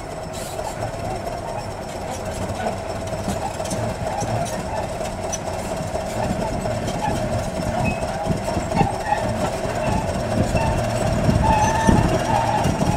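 Crawler bulldozer's diesel engine running under load and its tracks clanking as it pushes a pile of earth and broken brick forward. The sound grows steadily louder as the machine comes closer.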